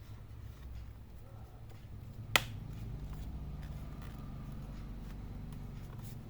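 Hands reassembling a laptop: quiet handling with one sharp click about two and a half seconds in, over a low steady hum.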